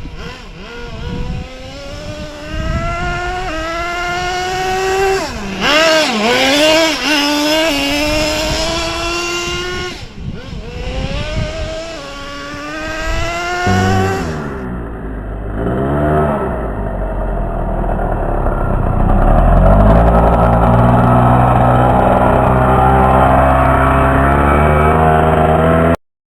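Traxxas T-Maxx nitro RC truck's small two-stroke glow engine running and revving, its pitch rising and falling again and again. About halfway through the sound turns duller and steadier, then stops abruptly near the end.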